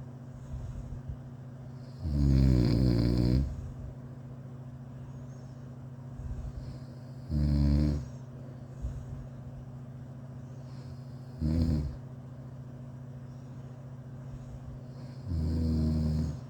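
A sleeping person snoring. There are four snores a few seconds apart, each with a clear pitch; the first, about two seconds in, is the longest at about a second and a half.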